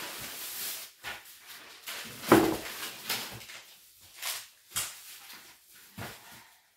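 Irregular knocks, thumps and rustles of monitor packaging and parts being handled and set down, the loudest about two seconds in.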